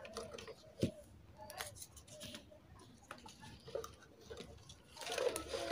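Faint clicks, taps and scrapes of adhesive tape and the light's plastic case being handled while the battery is taped in place. The sounds grow louder and busier near the end.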